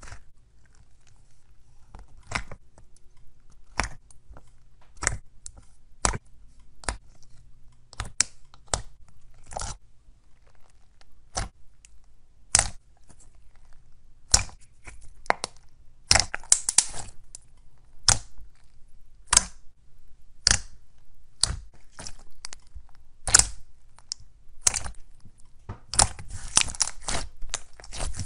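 Thick white slime being poked, pressed and folded by fingers, giving sharp wet pops and crackles as pockets of air in it burst. They come about once a second, with quick runs of crackling about halfway through and near the end.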